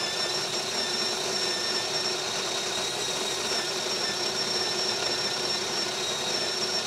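Built-in conical burr grinder of a DeLonghi La Specialista Arte espresso machine running steadily, grinding a dose of about 16 grams of coffee beans straight into the portafilter. A high steady whine sits over the grinding.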